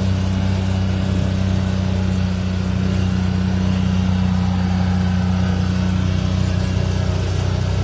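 Farm utility vehicle's engine running at a steady pace while driving, heard from the driver's seat: an even hum that holds one pitch throughout.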